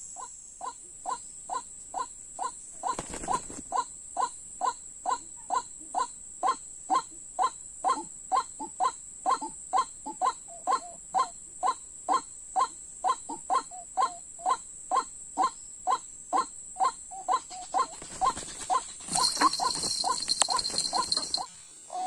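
White-breasted waterhen calling: one short call note repeated evenly, about two a second, over a steady high insect drone. Near the end a louder hissing noise joins for about two seconds.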